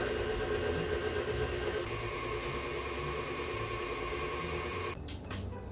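Tilt-head stand mixer's motor running steadily, its flat beater beating egg and extracts into creamed butter; a higher whine joins about two seconds in, and the motor cuts off suddenly about five seconds in.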